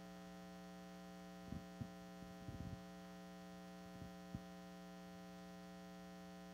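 Steady electrical mains hum in the sound system, with a few faint, short low knocks scattered through the middle.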